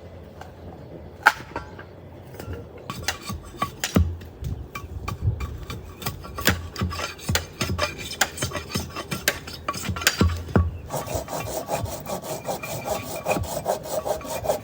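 A hand tool rasping and scraping on wood, with irregular knocks at first. About eleven seconds in it settles into a fast, even run of rasping strokes.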